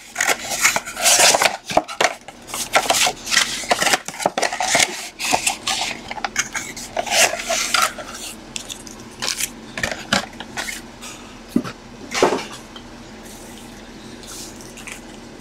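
Hands tearing open a cardboard trading-card mega box and pulling out its packs: a dense run of tearing, scraping and crinkling for about eight seconds, then quieter handling with a couple of single rustles.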